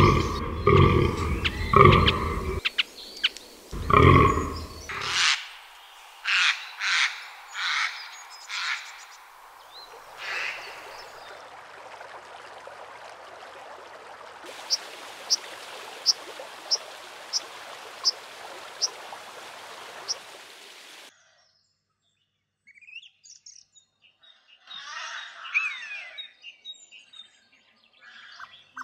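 A run of outdoor nature sounds. It opens with an animal's deep, rhythmic grunting calls, about two a second, ending about five seconds in, followed by a bird calling repeatedly. Then comes the steady rush of a woodland stream with a row of high, evenly spaced peeps over it, and after a sudden break, scattered bird chirps.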